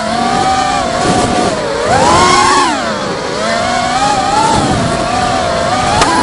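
Reptile Martian 220 five-inch racing quadcopter's brushless motors and propellers whining in flight, picked up by the camera on the quad itself. The pitch rises and falls with the throttle: up about two seconds in, down around three seconds, and climbing again near the end.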